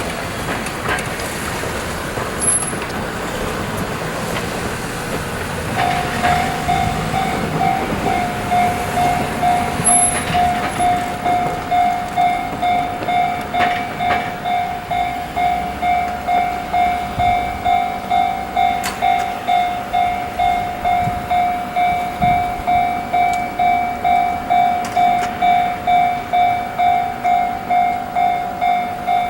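Japanese level-crossing alarm bell starting about six seconds in and ringing steadily at about two strikes a second, the loudest sound here, over the running noise of a freight train shunting container wagons.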